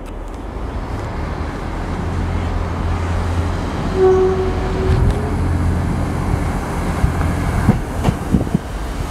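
Iarnród Éireann 29000 Class diesel multiple unit running in, its diesel engines giving a low steady rumble that grows louder as it approaches. About four seconds in, a brief steady tone sounds for about a second. Near the end the wheels click over rail joints and points.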